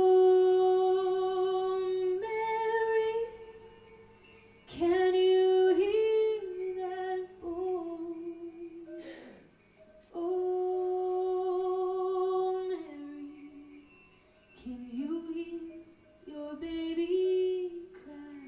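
A lone female voice singing slow, sustained phrases with vibrato, four phrases with short pauses between them.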